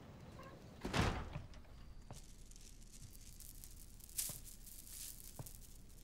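A door being opened with a sudden clunk about a second in, then a shorter thud about three seconds later, with a few faint taps between, over quiet room tone.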